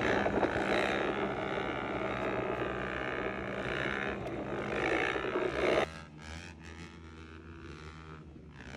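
Dirt bike engines running on the move, with a dense rushing noise, then dropping suddenly to a much quieter engine note about six seconds in.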